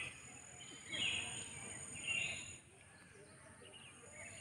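Birds calling twice, about one and two seconds in, over a steady high-pitched insect drone.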